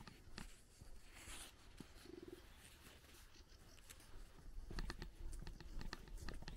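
Footsteps on a dirt road: a walker's steady steps, faint through the middle and growing clearer and louder again near the end. A brief low buzz sounds about two seconds in.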